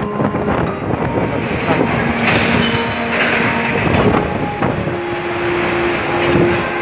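Typhoon wind blowing hard: a loud, steady rush of noise with faint whistling tones running through it.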